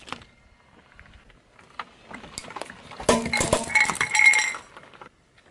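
Small clear plastic tubs cracking and crunching under a slowly rolling car tyre: a dense run of sharp cracks and clinks about three seconds in, lasting around a second and a half, after a couple of faint ticks.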